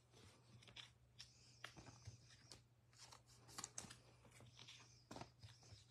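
Faint rustling and light clicks of baseball trading cards being handled and slid off a stack, a few scattered ticks over several seconds, over a low steady hum.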